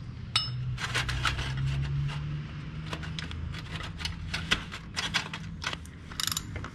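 Irregular metallic clicks and scrapes of an oil filter wrench being fitted and worked around the oil filter of a 1998 Harley-Davidson Road King, over a steady low hum.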